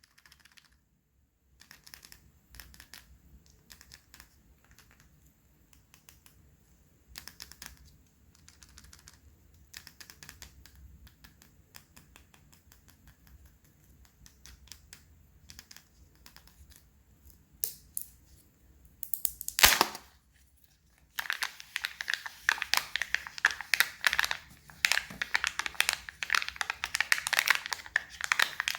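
Foil wrapper of a chocolate Kinder Surprise egg being handled and unwrapped: soft scattered crinkles at first, one loud rustle about two-thirds of the way through, then continuous loud crinkling and crackling of the foil.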